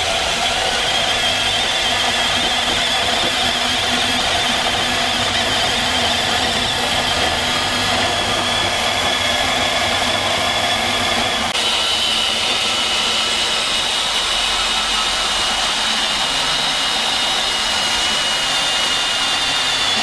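Milwaukee M18 FUEL brushless compact band saw running steadily as its blade cuts through 2-inch rigid steel conduit, a continuous high whine over a metallic sawing hiss. A little past halfway the whine drops slightly in pitch and holds there.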